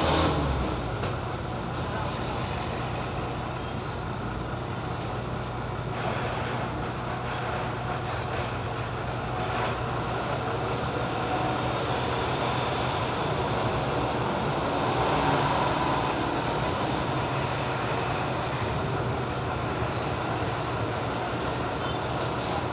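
Corded electric hair clipper buzzing steadily as it cuts a man's hair, a constant low hum over a background of steady traffic noise.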